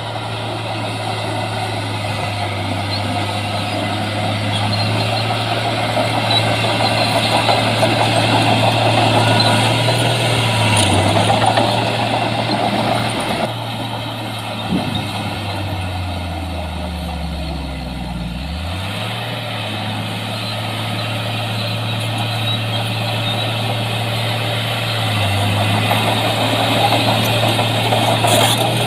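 Heavy diesel engine of earthmoving machinery running steadily over a noisy mechanical clatter. About halfway through, the engine note sinks over a few seconds, then picks back up.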